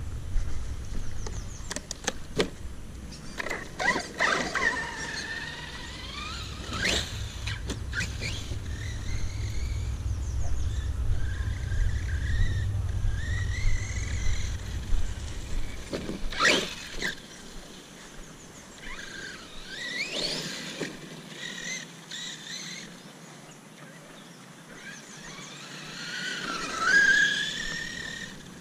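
Electric motor and drivetrain of a Redcat Landslide RC monster truck whining up and down in pitch as it speeds up and slows, over and over, with several sharp knocks in the first half.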